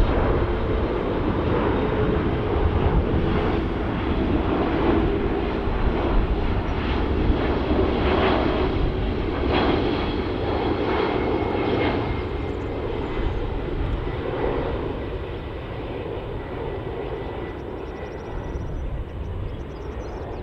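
Airbus A330-323 airliner on final approach, its Pratt & Whitney PW4000 turbofans making a steady jet rumble with a humming tone as it passes close by. The noise fades over the last several seconds as the aircraft moves away.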